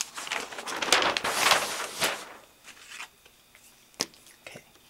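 A large flip-chart paper sheet rustling and crinkling as it is lifted and flipped over the top of the pad, for about two seconds. A single sharp click follows about four seconds in, as a marker is uncapped.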